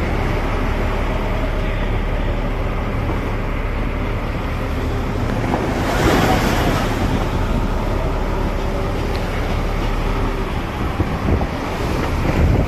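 Rough sea waves slapping and splashing against the side of a moving wooden fishing trawler, with wind buffeting the microphone and the boat's engine running steadily underneath. A bigger splash of spray comes about halfway through, and the water gets louder again near the end.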